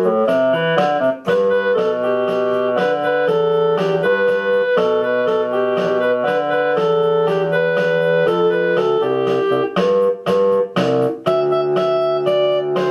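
Instrumental music led by piano or electric keyboard, with chords and a moving melody. The music breaks off briefly a few times near the end.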